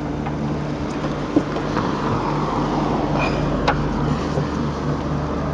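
A motor vehicle runs with a steady low hum, and its rushing road noise swells through the middle. Two light sharp taps come through, one about a second and a half in and one near four seconds.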